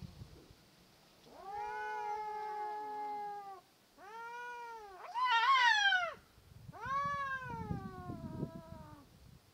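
Two tomcats yowling at each other in a territorial standoff: four long, drawn-out wavering caterwauls. The loudest and highest-pitched comes about five seconds in.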